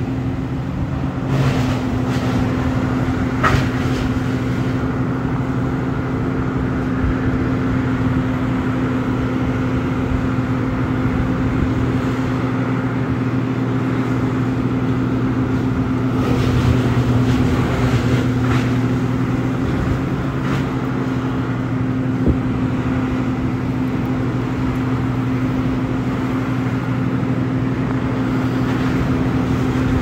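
An engine idling steadily, a low even hum. A car drives past near the start.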